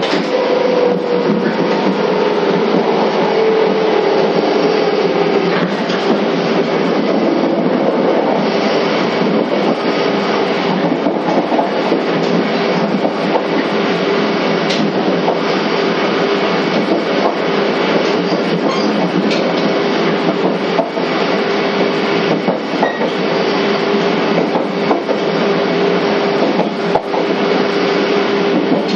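Running sound heard inside a 485-series EMU motor car (MoHa 484): the steady rumble of wheels on rail, with traction motor and gear whine that drops slightly in pitch over the first five seconds and then holds steady, and occasional faint clicks of the wheels over rail joints.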